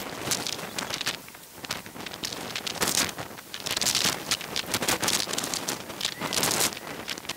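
Shoreline sound sped up twentyfold, squeezed into a dense, crackling hiss with rapid, irregular bursts.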